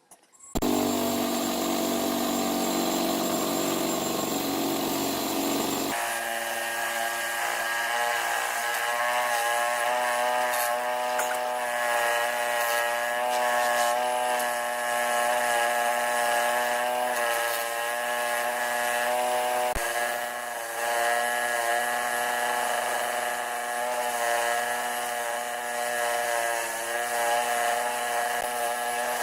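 A power tool's motor starts suddenly and runs continuously, its tone shifting to a different, steadier pitch about six seconds in.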